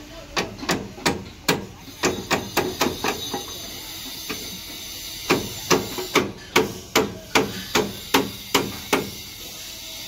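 Hammer striking steel formwork panels and their fittings as the formwork is stripped from the concrete: quick ringing metallic blows, about three a second, in two runs of a dozen or so with a pause of about two seconds between.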